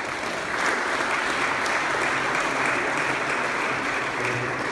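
Audience clapping, breaking out suddenly and holding steady.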